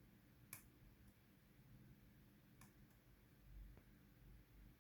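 Near silence with three faint, sharp clicks of a lock pick working the pins inside an old Zeiss Ikon five-pin cylinder lock.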